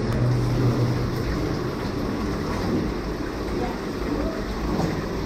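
Continuous muffled rumbling and scraping noise from cavers' suits and gear rubbing against rock while squeezing through a tight cave passage, picked up by a body-mounted camera.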